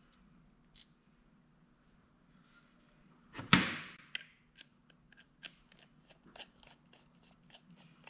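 Small carburetor parts being handled and set down during reassembly: a single click near the start, a sharp clatter about three and a half seconds in, then a run of light clicks and taps.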